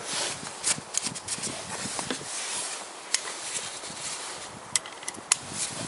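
Scattered light metallic clicks and taps, irregularly spaced, from a socket wrench being handled and brought to a bolt on the oil pump intake pipe in an engine's open crankcase.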